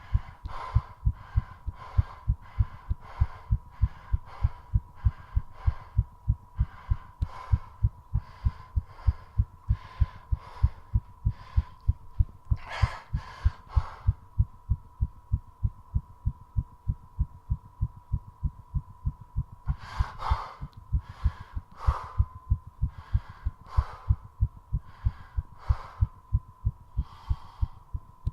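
Fast human heartbeat, a rapid steady thudding pulse raised by squat exercise, with heavy breathing over it. A few deep breaths about halfway through lead into a breath hold of about six seconds, in which only the heartbeat is heard, before the heavy breathing resumes. A faint steady high tone runs underneath.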